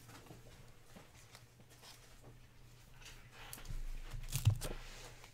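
Faint rustling and light clicks of glossy baseball trading cards being flipped through and slid against each other by hand. There are a few louder taps and slides around four seconds in.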